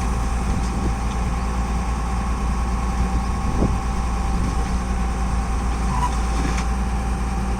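Tata Hitachi excavator's diesel engine running steadily, a constant low hum with a few faint steady tones.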